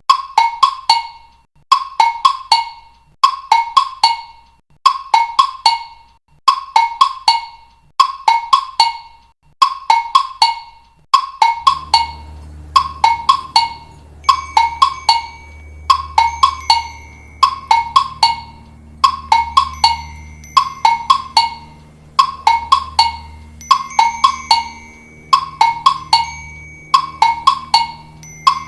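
TikTok ringtone playing as a repeating loop: a cluster of about four short, pitched percussive notes roughly every second and a half. About twelve seconds in, a low bass and held notes join under the pattern.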